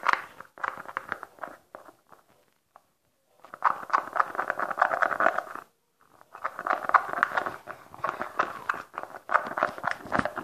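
Sticky glue-and-shaving-foam slime being stirred and worked, a dense wet crackling squish in three stretches with a short silent pause about two seconds in and a brief break near the middle.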